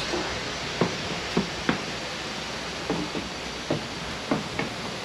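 Footsteps: a handful of short, irregular thuds at a slow walking pace, over a steady rushing hiss.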